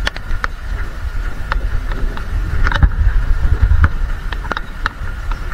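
Rain, with drops hitting close to the microphone as scattered, irregular sharp taps over a heavy low rumble of wind and handling noise.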